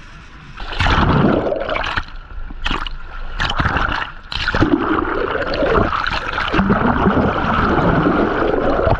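Water rushing and gurgling around a camera held underwater beside the boat, full of bubbles. It comes in loudly about a second in, with a few brief dips.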